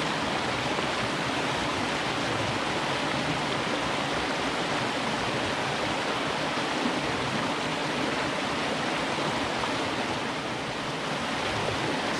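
Shallow mountain creek running over rocks, a steady, even rush of water.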